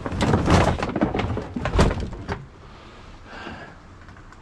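A quick run of knocks and thuds from things being handled in a small shed, loudest in the first two seconds, then dying down to faint rustling.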